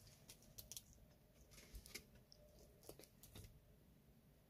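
Eurasian eagle-owl feeding on raw meat, its beak tearing at the food: faint, scattered short clicks and soft tearing noises, eight or so in a few seconds.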